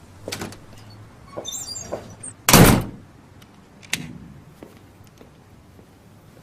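Several light clicks and knocks, then one loud, sudden noise burst lasting under half a second about two and a half seconds in, and a sharper knock about a second later.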